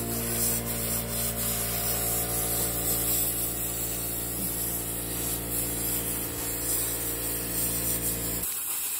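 Plasma cutter cutting through steel plate: a steady hiss over a low even hum, cutting off suddenly near the end as the arc stops.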